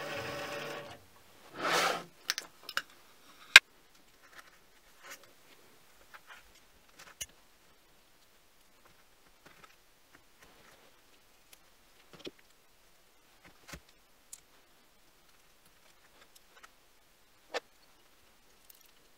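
A mini lathe running briefly, cutting off about a second in, then a short whoosh. After that come scattered light clicks and knocks of small metal parts being handled and set into a foam-lined wooden case, the sharpest a crisp click about three and a half seconds in.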